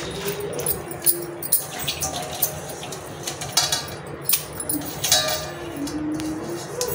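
Ponnaganti greens being washed by hand in a steel pan of water: irregular splashes and sharp metallic clinks against the pan.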